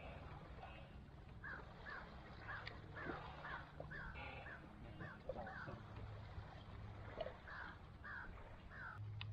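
A bird calling again and again, about a dozen short calls in quick succession, over a low steady hum that swells now and then.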